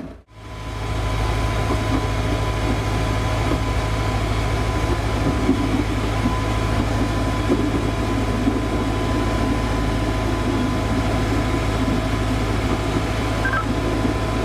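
Works train on a narrow-gauge railway running steadily, with a constant engine hum and rolling noise that cut in just after the start.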